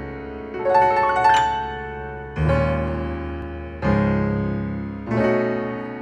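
Grand piano played slowly: full chords struck about every second and a half, each left to ring and fade, with a short run of high notes in the first second and a half.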